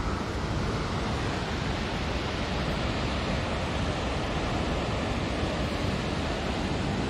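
Waterfall making a steady, unbroken rushing noise.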